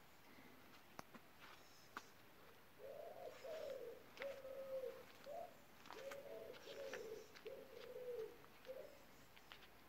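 A pigeon cooing: two similar phrases of low notes, starting about three seconds in. Otherwise near silence, with a few faint clicks.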